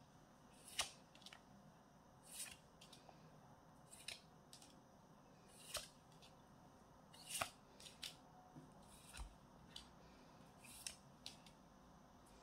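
Cardboard Harry Potter collector cards being slid and flipped one by one in the hand: faint, short, crisp snaps every second or so.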